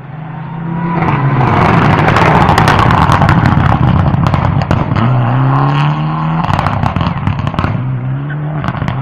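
Rally car driving past at full throttle, loudest about two to four seconds in. The engine note climbs and cuts back at each gear change, around five and six and a half seconds in. Sharp cracks and pops from the exhaust run throughout.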